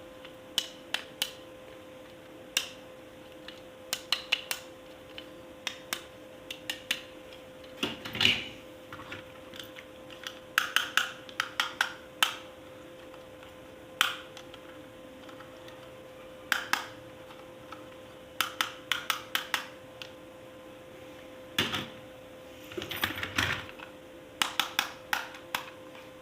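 Hard plastic toy pieces being handled, giving scattered sharp clicks and taps in irregular clusters, over a faint steady hum.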